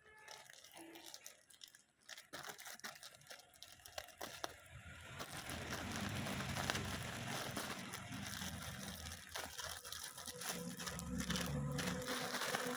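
Plastic packaging crinkling and crackling in short, irregular bursts as a parcel is opened by hand. In the second half a steadier, louder background of music fades in.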